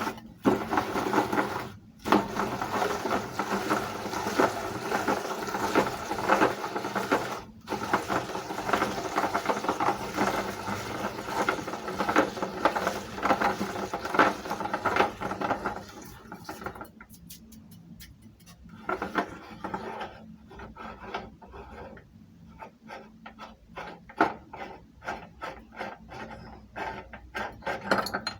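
Meat grinder grinding ice cream: a dense, continuous grinding and churning for the first half. About halfway through it thins into scattered crackling clicks and crunches.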